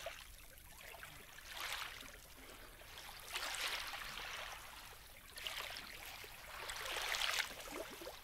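Small lake waves lapping quietly at a shallow, stony shore, each wash swelling and fading about every two seconds.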